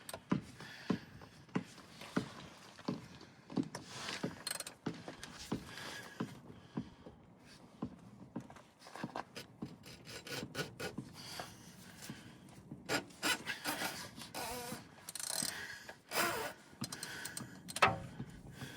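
A cup-style oil filter wrench scraping and knocking against a spin-on oil filter as it is worked to break the filter loose. Irregular clicks and scrapes, with a couple of sharper knocks near the end.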